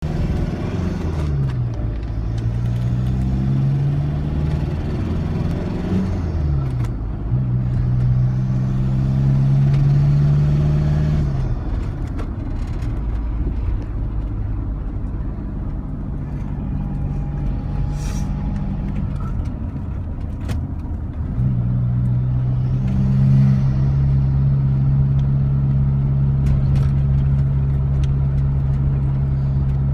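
Ford Transit engine being revved and let off, with turbo flutter as the throttle closes. The revs swing up and down repeatedly early on, then settle, drop back for a while, and rise again to a steady higher speed about two-thirds of the way through.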